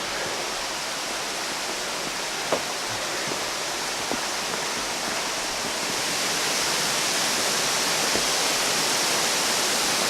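Rushing water of a waterfall, a steady roar that grows louder about six seconds in, with a sharp tap about two and a half seconds in.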